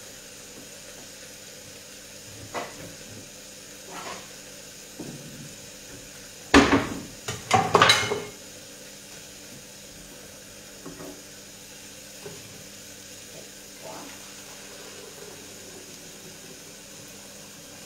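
Kitchen utensils and cookware being handled on a counter. A few light knocks come early, then a louder cluster of clinks and knocks about six and a half to eight seconds in, over a faint steady hiss.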